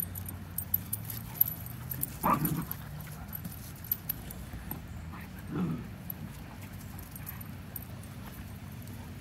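Puppies playing rough, with a dog giving two short vocal sounds, about two seconds in and again near six seconds, over faint scattered clicks.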